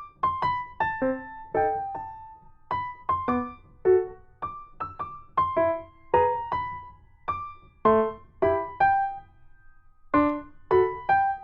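Background music: a tune of short struck keyboard notes, two to three a second, each starting sharply and dying away quickly, with no singing.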